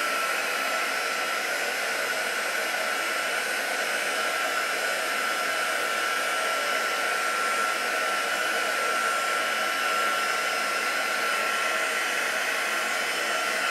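Handheld craft heat tool blowing hot air to dry wet ink on card: a steady rush of air with a constant high whine from its fan motor.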